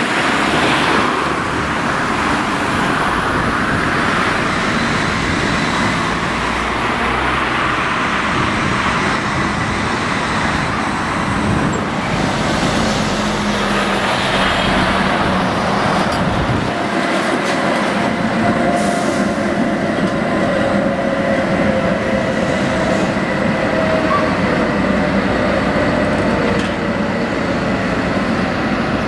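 Street traffic noise with a Tatra KT4D articulated tram running past on its rails, along with passing cars. A faint wavering whine comes in partway through.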